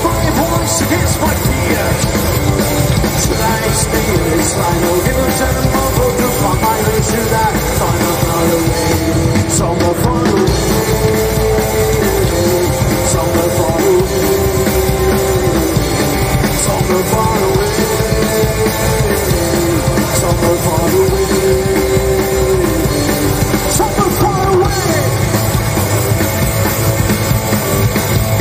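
Live rock band playing: upright double bass, drum kit and electric guitar, with a melody line that steps up and down.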